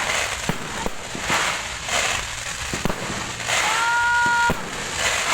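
Fireworks going off: scattered sharp bangs and crackling bursts, with a held high tone a little past halfway through.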